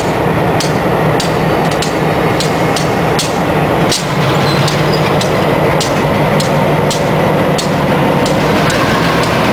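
Two EMD SW1200 switcher locomotives, each with a 12-cylinder 567 diesel, rolling slowly past at close range with their engines running steadily. Sharp clicks come from the wheels on the track every half second or so.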